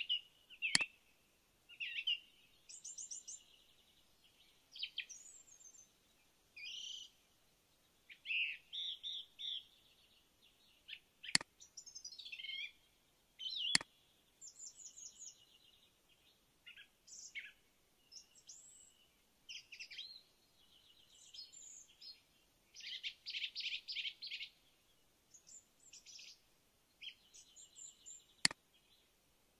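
Small songbirds chirping and singing in short, varied trills and warbles, one phrase after another with brief gaps. Four sharp computer-mouse clicks stand out, about a second in, twice around the middle and once near the end.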